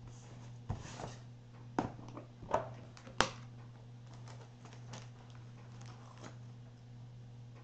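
A clear plastic snap-latch storage case being handled and opened: a run of sharp plastic clicks and knocks, the sharpest about three seconds in, then lighter ticks and rustling as a small zip-lock bag and a circuit board are lifted out. A steady low hum runs underneath.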